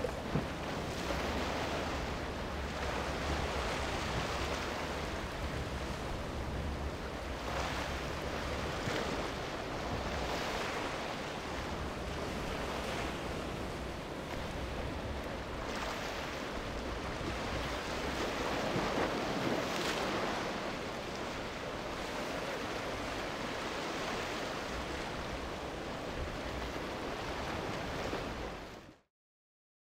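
Ocean waves and surf washing and breaking, swelling in surges, with wind rumbling on the microphone. The sound cuts off abruptly near the end.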